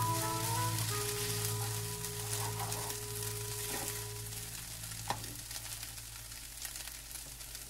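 Instant noodles with pork frying in a non-stick pan, a steady fine sizzle with small crackles as they are stirred and turned with a spatula, and a sharp click of the spatula on the pan about five seconds in. Quiet background music with held low notes fades away over the first half.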